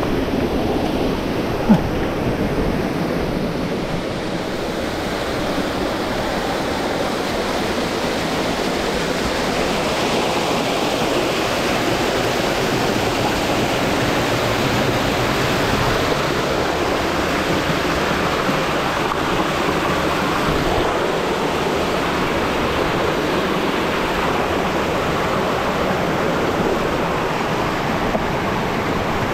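Mountain stream water rushing over rocks, a steady loud hiss, with one short sharp knock about two seconds in.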